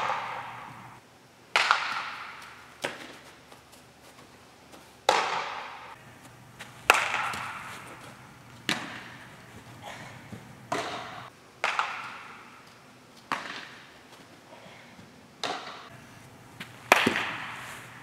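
Sharp cracks of baseballs being struck and caught, about one every one to two seconds, each ringing out in the long echo of a large indoor turf facility.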